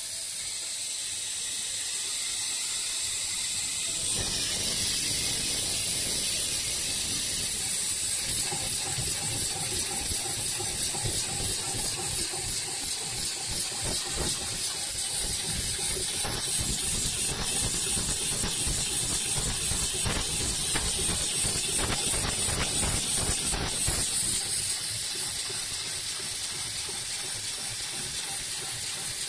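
Extra heavy-duty industrial sewing machine stitching a thick buffing wheel, running with a fast, even chatter from about four seconds in until near the end, over a steady hiss.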